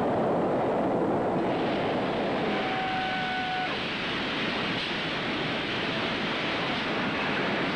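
Steady, loud industrial din, an even roar of workshop machinery, with a brief whistle-like tone about three seconds in.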